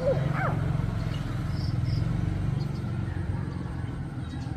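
Steady low hum of an engine running, with a brief chirping call right at the start.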